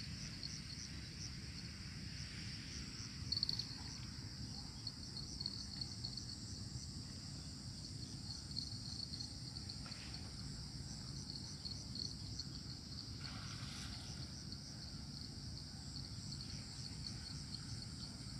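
Steady high chirring chorus of insects, finely pulsing, over a low steady rumble. A brief bump sounds about three seconds in.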